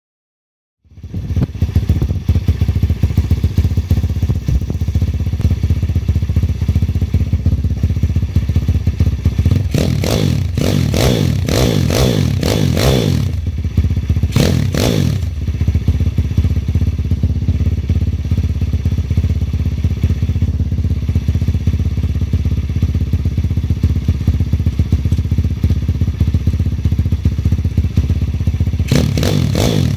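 The ATC B70 mini bike's 160cc single-cylinder four-stroke engine running on its first start-up. It idles steadily, with a run of throttle blips about ten seconds in, another a little later, and more near the end.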